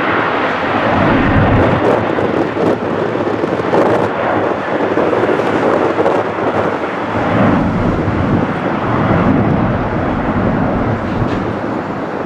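Airbus A330 twin-engine airliner climbing away at takeoff thrust just after lift-off: a loud, rough jet rumble that wavers in level but does not fade.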